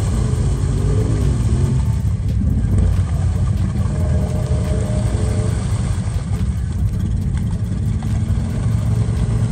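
Snorkeled Honda 420 ATV's single-cylinder engine running under load as the quad is driven through deep mud water. Its low, steady note shifts slightly in pitch about a second in.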